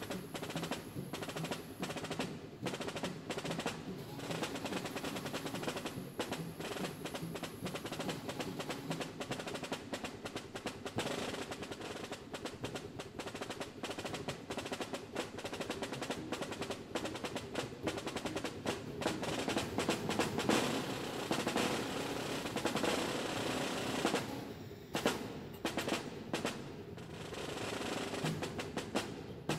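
Snare drum played in fast, dense strokes like a roll, beginning suddenly and thinning out briefly about 24 seconds in before picking up again.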